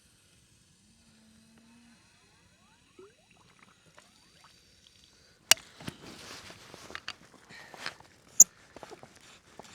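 Quiet at first, then from about halfway through, handling noises: a few sharp clicks and knocks with rustling in between, as a garden hose coupling that won't thread on is worked at.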